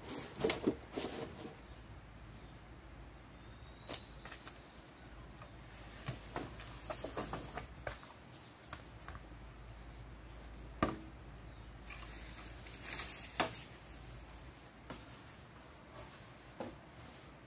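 Insects trilling steadily on one high pitch, with a few sharp knocks and taps scattered over it. The loudest knocks come just under a second in and about two-thirds of the way through.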